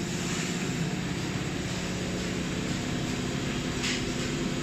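Industrial IMF drum coffee roaster running with a batch of beans tumbling inside: a steady drone of the drum and fans with a low hum. A brief hiss sounds about four seconds in.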